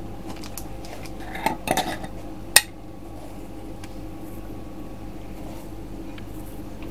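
Kitchen utensils and dishes clinking: a few light clatters, then one sharp clink about two and a half seconds in, over a steady low hum.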